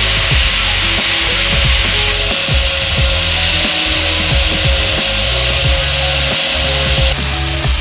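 Angle grinder running with its disc pressed against steel bodywork, grinding weld beads flush on a repaired wheel arch: a steady high whine over a harsh grinding hiss. Background music with a bass beat plays underneath.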